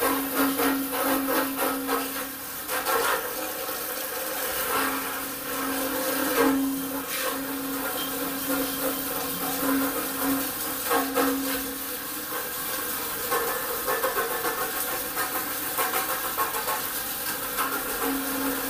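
Hose spray-gun jet hissing and drumming against the inside of a hot steel brewing vessel, with an on-and-off low hum and a few sharp cracks as the cold water hits the still-hot tank and raises steam.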